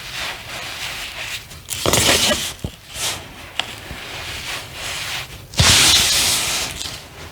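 Soft lumps of reformed cornstarch being crushed by hand: crumbly, rubbing crunches, with louder squeezes about two seconds in and again near the end.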